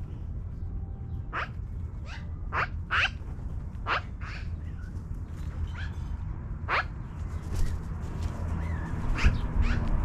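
Magpies calling from a tree: about ten short, harsh calls, irregularly spaced, over a steady low rumble.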